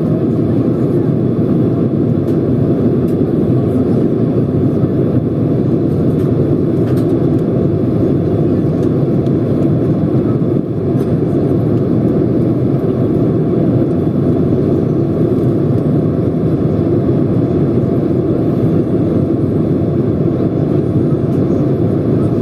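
Steady cabin noise inside a Boeing 767-200 descending on approach to land: a dense, even rumble of engines and airflow heard through the fuselage at a window seat over the wing. The level dips for a moment about halfway through.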